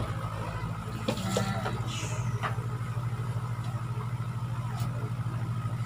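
A steady low engine hum, like an idling motor, with a few light clicks and rustles about one to two seconds in.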